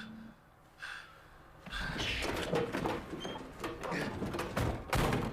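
A quick run of knocks, thuds and clattering that starts about two seconds in and keeps going, loudest near the end.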